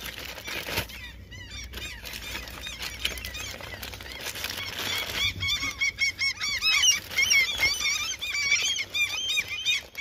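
A flock of gulls calling, many short squawks overlapping, growing denser and louder from about halfway. A plastic bag rustles in the first seconds.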